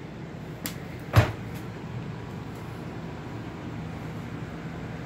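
A single sharp knock about a second in, with two fainter clicks just before and after it, over a steady low hum.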